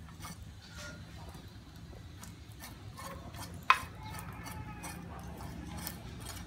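Cleaver blade scraping along a water snake's body on a steel tray, with scattered small scrapes and clicks and one sharp clink of metal on metal a little over three and a half seconds in.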